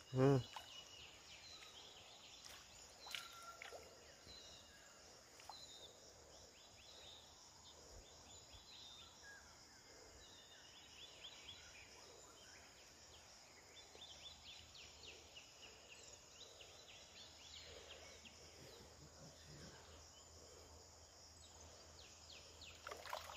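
Faint outdoor wildlife ambience: a steady high insect drone with short trains of quick, high chirping calls repeating every few seconds.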